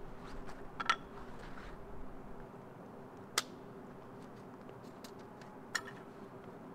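Fabric rustling as a pole is drawn from its bag, then a few separate sharp clicks as a thin segmented pole is handled. The clicks come about a second in, at about three and a half seconds and near six seconds, over a faint steady hum.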